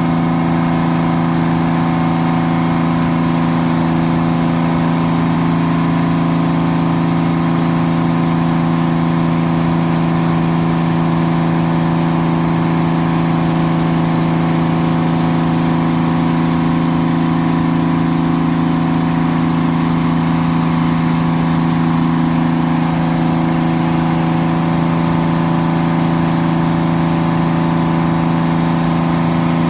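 1974 Grove TMS300 truck crane's engine running steadily at idle, a constant hum.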